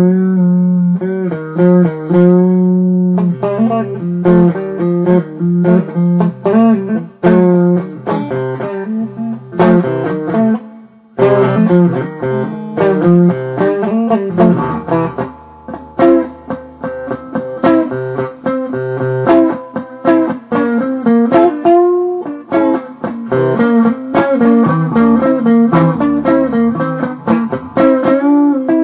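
Blues guitar music: single plucked notes and chords, some notes bent and wavering in pitch.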